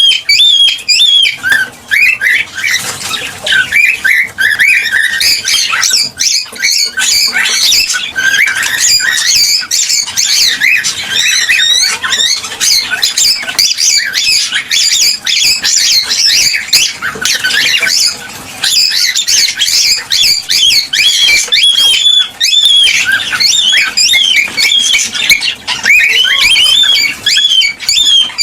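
Several cockatiels chattering, whistling and squawking without a break, their short calls overlapping one another.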